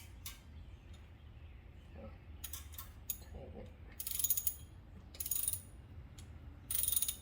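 Socket ratchet clicking in short back-and-forth bursts, about four strokes, as the transmission dipstick is snugged down past a quarter turn after hand-tightening.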